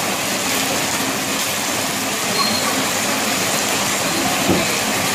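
Heavy rain falling, a steady even hiss, with a brief low thud about four and a half seconds in.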